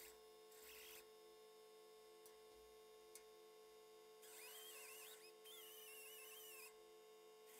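Handheld pneumatic air tool on an air hose, run faintly in short trigger bursts: a whine that wavers in pitch, with air hiss. One brief burst comes under a second in, then two longer ones follow from about four seconds in, over a steady electrical hum.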